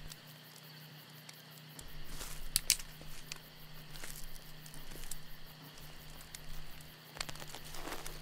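Campfire crackling, with scattered pops and a few sharper cracks a couple of seconds in and again near the end.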